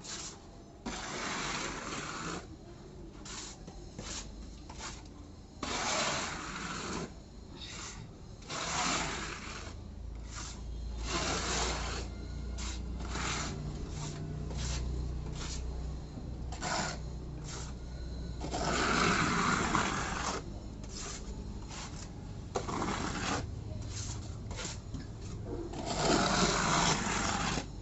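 A hand tool rubbing and scraping texture paint across a wall in repeated strokes, some brief and some a second or two long, at an uneven pace.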